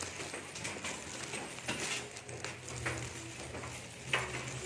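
Footsteps on a concrete floor and a few knocks of a phone being handled while carried, over a low steady hum.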